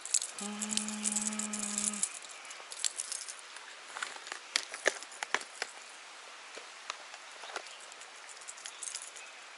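Fishing lures and hooks clicking and rattling against a plastic tackle box as it is opened and handled: a scatter of sharp clicks. Near the start there is a steady hum lasting about a second and a half.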